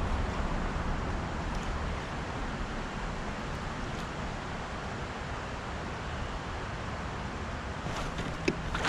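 Steady wind noise on the microphone outdoors, a low rumble that eases off after the first couple of seconds, with a few faint clicks near the end.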